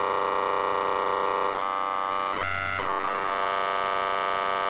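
Software sampler effect (Beatchop in Reason) retriggering very short slices of an audio track at a high step rate, giving a steady, glitchy, buzzing drone. Its tone shifts around one and a half seconds in and changes briefly a little later before settling back.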